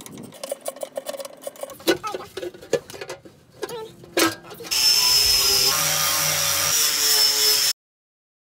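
Hand tools working the oil pan bolts under the engine: irregular metal clicks and knocks of a wrench or ratchet. About five seconds in, a loud steady hiss with a thin high whine starts; it runs for about three seconds and cuts off abruptly.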